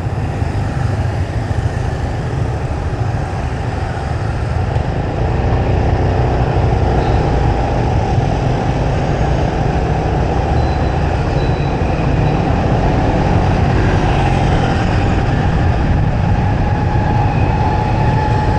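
Steady street traffic and vehicle noise with a heavy low rumble, getting louder about five seconds in.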